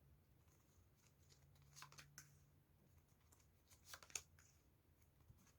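Near silence with a few faint rustles and flicks of tarot cards being shuffled, the clearest around two and four seconds in.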